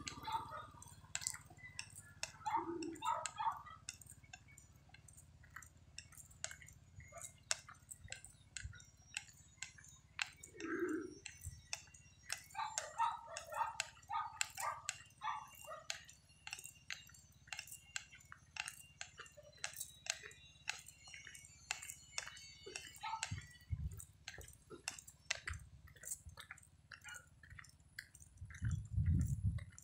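Quiet footsteps and small scuffs and clicks while walking along a concrete road, with a few faint short sounds in the distance.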